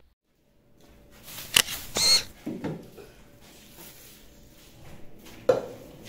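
Containers and fridge parts being handled at a refrigerator: a few sharp clicks and clinks about one and a half to two seconds in, a duller knock just after, and another sharp knock near the end, as of a fridge door or shelf being bumped.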